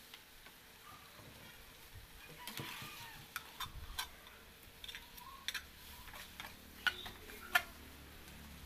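Metal spatula clinking and scraping against a frying pan as pieces of fish in sauce are stirred, with a faint sizzle. Sharp clinks come several times in the second half.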